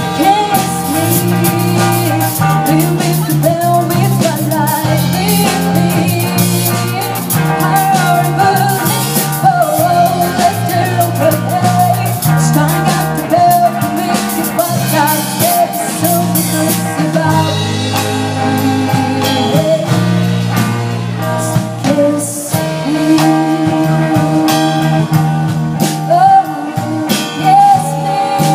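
Live rock band playing a song: a female voice sings lead over electric guitar, electric bass and a drum kit, amplified through the stage's PA.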